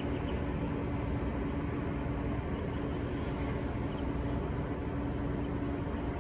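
Steady low rumble with a constant hum from a running motor or machine, unchanging throughout.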